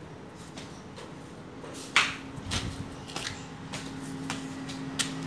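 Scattered taps and knocks, the loudest about two seconds in, with a low steady hum coming in partway through.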